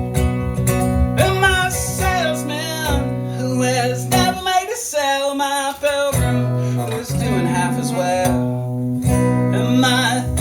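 Live band music: acoustic guitar strumming under a wavering melody line with vibrato that comes in about a second in.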